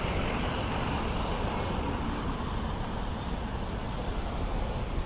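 Steady road traffic noise: a continuous wash of passing cars and tyre noise with a low rumble underneath.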